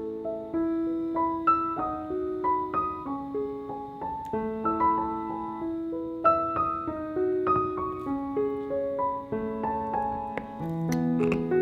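Solo piano music: a slow melody of single sustained notes over held lower notes.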